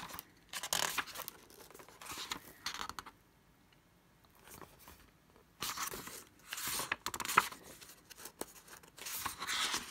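Pages of an old hardback book being turned and handled by hand: papery rustles in several short spells, with a quiet stretch in the middle.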